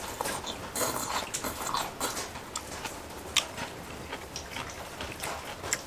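A person chewing a mouthful of spicy braised monkfish with bean sprouts, with irregular wet smacking and clicking mouth sounds.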